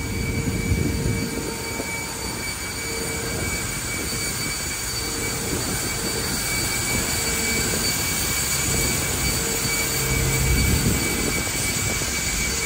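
Air conditioning pack of a parked Boeing 747-400ERF running on the ground: a steady, noisy rush with several steady whining tones through it.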